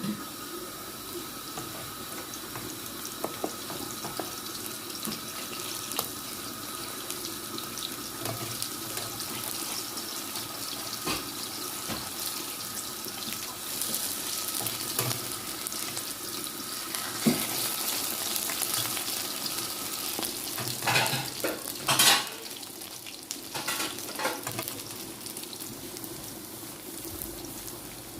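Aubergine slices sizzling and crackling in hot oil in a pan, a steady high hiss full of small pops. A few louder knocks come about three quarters of the way through.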